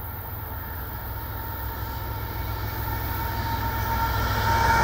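CN freight train approaching: the low rumble of its diesel locomotives grows steadily louder as they near.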